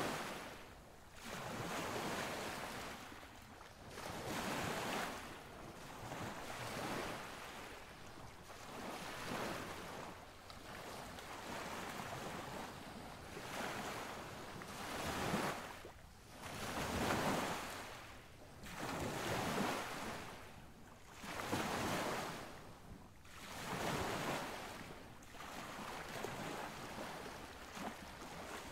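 Surf and wind: a noisy hiss that swells and fades unevenly every second or two.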